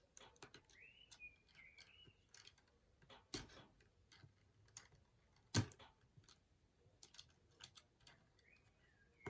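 Small clicks and taps of a plastic pry tool and loose phone parts as an iPhone 5c's display connectors are pried off and the screen is lifted free, with two louder clicks in the middle. A bird chirps faintly in the background about a second in and again near the end.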